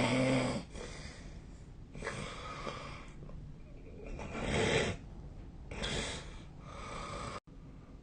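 A sleeping person snoring: a loud, buzzing snore with a low steady pitch ends about half a second in. Three rougher, airy snoring breaths follow about every two seconds. The sound cuts out completely for an instant near the end.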